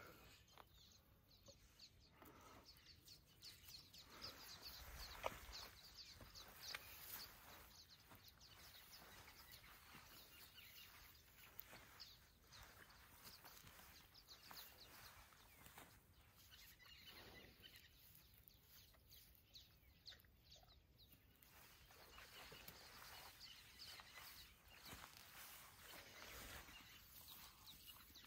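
Near silence: faint outdoor ambience with scattered soft ticks and rustles.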